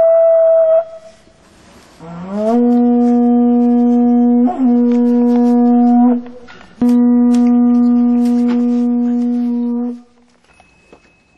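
A horn-like wind instrument blowing long, steady notes. A higher note ends about a second in, then a low note slides up into a held tone of about four seconds, and after a short break the same low note is held again for about three seconds before stopping.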